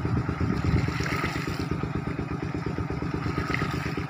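A small engine running steadily, with a fast, even chugging.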